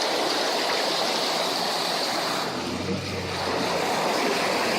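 Car driving through deep floodwater: a steady rush of water spraying and washing around the car, with a low hum rising briefly a little past halfway.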